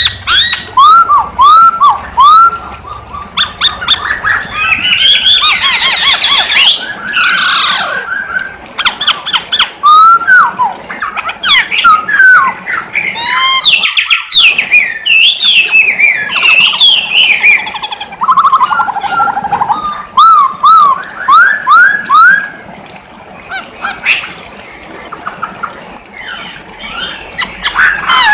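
Chinese hwamei (poksay hongkong) singing a loud, varied song of rapid slurred whistles, with short phrases of quickly repeated notes and a few brief pauses.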